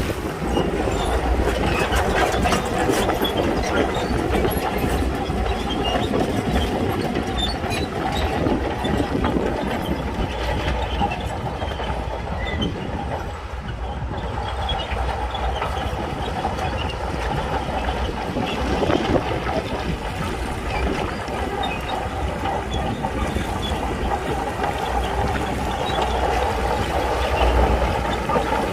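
Shantui crawler bulldozer working: its diesel engine running steadily under load while the steel tracks clank and rattle with many small metallic clicks.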